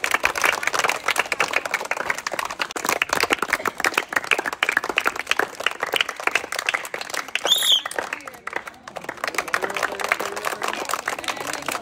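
A crowd of children and a man clapping fast and steadily, with a short shrill high-pitched tone about seven and a half seconds in; the clapping thins out briefly about a second later, then picks up again.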